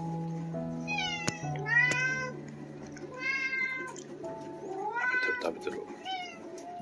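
Domestic cat meowing about five times, each call sliding in pitch, over soft background music.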